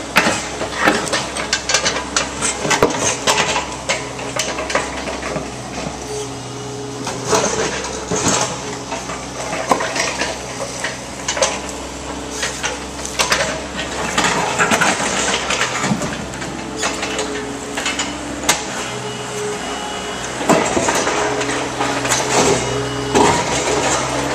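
Demolition work on concrete: many irregular metallic clanks and knocks over a steady machine hum.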